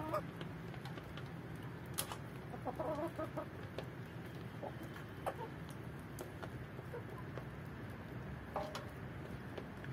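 A flock of chickens clucking now and then, with a cluster of short calls about three seconds in and another near the end. A few sharp clicks come through, the loudest about two seconds in.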